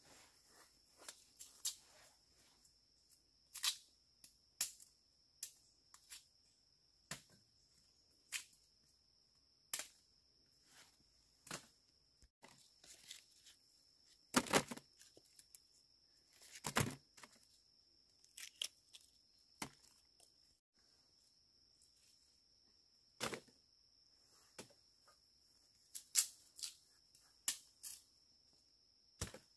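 Irregular sharp snaps and cracks as small wild bamboo shoots are broken off by hand and dropped into a woven bamboo basket; the loudest pair comes about halfway through. A steady high insect drone runs behind.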